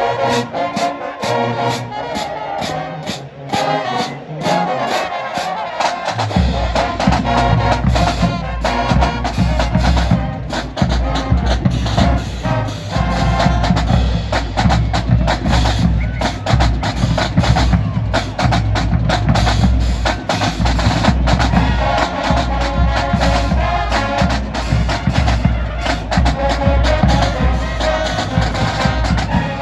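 A marching band playing in the stands, with brass and a drum line; heavy bass drums come in about six seconds in and keep a driving beat.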